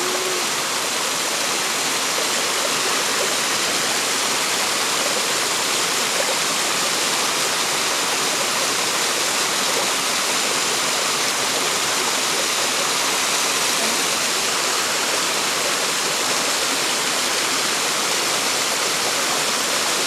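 Waterfall: water pouring down a rock face and splashing over wet rock slabs, a steady, unbroken rush.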